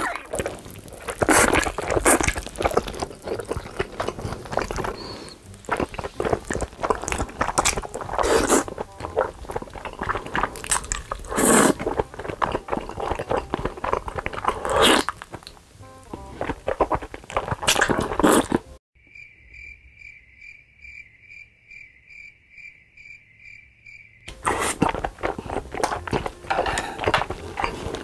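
Close-miked mukbang eating: wet slurps, smacks and chewing as mouthfuls of stretchy melted cheese and food are sucked in and chewed. About 19 s in, the eating cuts out for about five seconds and a high beeping pulse repeats about two or three times a second. Then the slurping and chewing resume.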